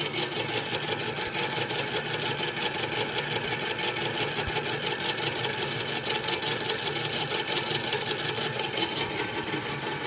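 Small motor from an air-mattress inflator driving a 3D-printed gear train and skate-bearing shaft, running steadily with a fast, even whir.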